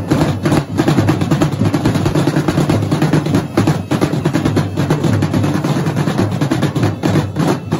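Two marching drumlines of drum and bugle corps playing together: fast, loud snare drum strokes and rolls over bass drums, a dense, unbroken stream of beats.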